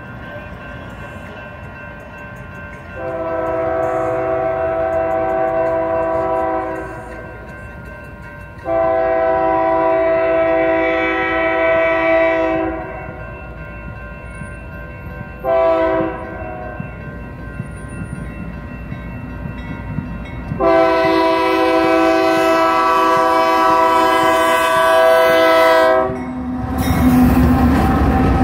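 Union Pacific diesel locomotive's air horn sounding the grade-crossing signal: two long blasts, a short one, then a long one. Under it the crossing's electronic warning bell rings steadily. Near the end the lead locomotives reach the crossing, their engines and wheels rumbling past.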